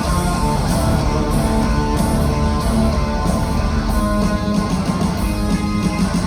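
Rock band playing live at full volume: distorted electric guitars and drums in an instrumental passage of a heavy rock song.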